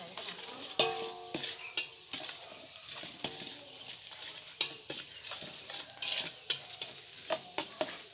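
Garlic sizzling as it fries in a large hot metal basin, with a steady hiss. A stirring utensil scrapes and clanks against the basin many times at an uneven pace, and a clank about a second in rings briefly.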